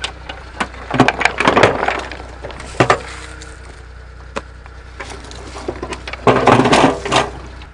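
Dry brush and twigs crackling and snapping as someone pushes through thorny undergrowth on foot, with footsteps on dry leaves and gravel. There are bursts of crackling about a second in and again near the end, with single snaps in between.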